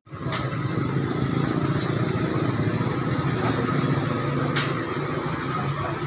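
Street traffic: motorcycle engines running steadily, with a few faint short ticks.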